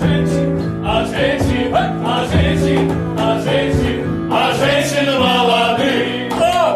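Several men singing together in Russian over instrumental accompaniment, ending on one long held note near the end.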